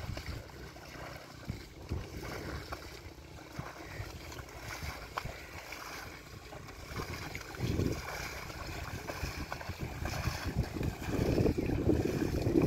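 Water buffalo wading through shallow river water, its legs splashing irregularly with each step, with wind buffeting the microphone; the splashing gets louder near the end.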